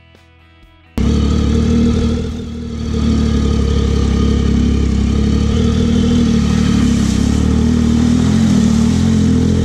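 Faint background music for about a second, then a Triumph Tiger 800's three-cylinder engine cuts in loud, running under steady throttle on a dirt trail. It eases briefly about two seconds in, then holds a steady note.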